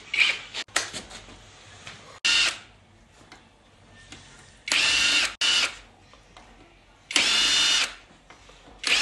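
Cordless drill-driver backing out bolts inside the bellhousing of a ZF 6HP19 automatic transmission, its motor whining in short runs that stop and start about five times.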